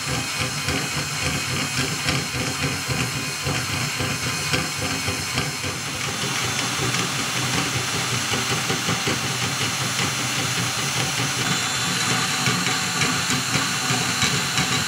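Cordless drill running steadily, spinning a spool to wind fishing line off one spool onto another that turns freely on a tube.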